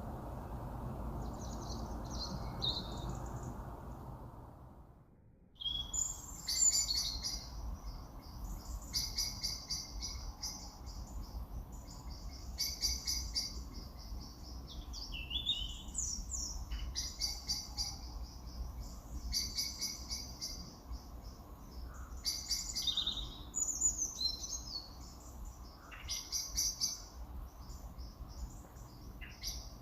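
Small birds chirping in short repeated calls, about one every second or two, over a steady low background noise. The sound drops out briefly about five seconds in, then the chirping carries on.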